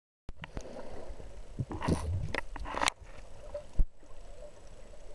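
Underwater sound picked up through a diving camera: a low watery rumble with scattered knocks and clicks, a louder rushing patch around two to three seconds in, and one sharp click a little before four seconds.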